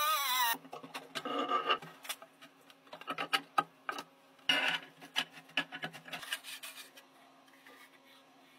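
Scraping, rubbing and clicking of rusty sheet metal as lamp parts are worked and handled, in scattered bursts. A short wavering whine cuts off about half a second in, and the sounds die away near the end.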